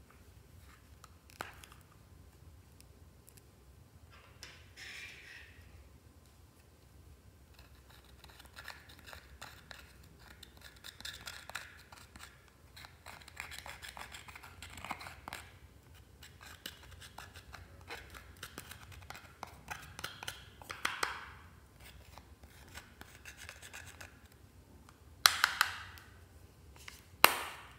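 Tips of small scissors scraping and chipping pressed eyeshadow out of a palette's pans, a busy run of scratchy clicks and scrapes. Two sharp knocks near the end.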